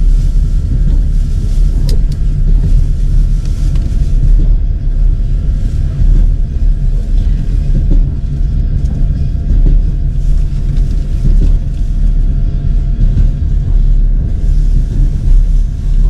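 Loud, steady low rumble of a moving vehicle, with faint steady tones running above it.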